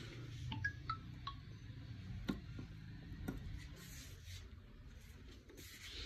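Faint clicks and soft plastic rustling as a kids' battery-powered ride-on car is handled, over a low room hum, with a few short high tones falling in pitch in the first second or so.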